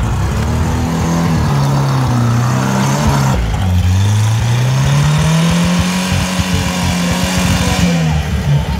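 Tractor engine revving hard under load as the tractor struggles in mud. Its pitch climbs, dips about halfway through, climbs again and holds high, then falls near the end.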